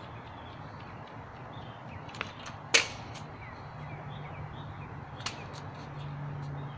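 Sharp clacks of a kick scooter's deck and wheels hitting asphalt as it lands bunny hops: a small one, then a loud one, and a third a few seconds later. A low steady hum comes in about halfway.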